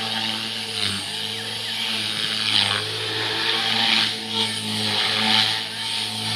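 Rave 400 RC helicopter flying 3D aerobatics: a steady motor and rotor hum with rotor-blade swishes that swell and fade over and over. The pitch dips briefly about a second in and again near two and a half and four and a half seconds.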